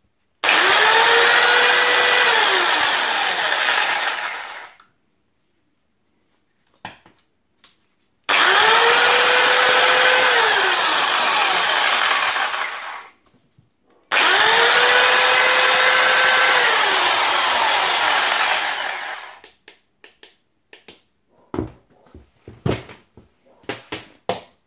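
Parkside PSTK 800 A1 corded pendulum jigsaw running free with the blade in the air, three runs of a few seconds each; in each the motor pitch rises as it spins up, holds, then drops as it winds down. Near the end, a string of clicks and knocks as the saw is handled and set down.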